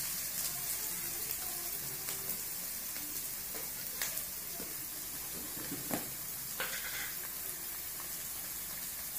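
Vegetables for fried rice sizzling steadily in a hot steel wok, with a few sharp metal clinks about four and six seconds in.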